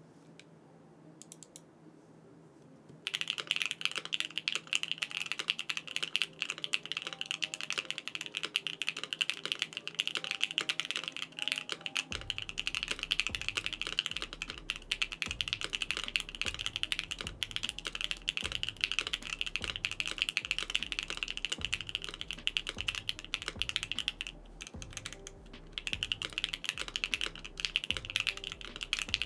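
Typing on a BakenekoGO mechanical keyboard with a polycarbonate case: a dense, even clatter of keystrokes that starts about three seconds in, with a short pause a few seconds before the end.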